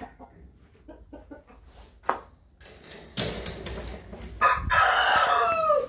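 Hens clucking softly, then a rooster crows loudly near the end, a call of about a second and a half that falls in pitch as it finishes. A short burst of scuffing noise comes about three seconds in.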